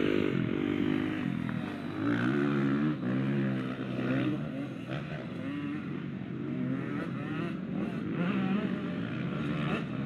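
KTM 85 two-stroke motocross bike ridden hard, its engine revving up and dropping back again and again as the rider shifts through the gears.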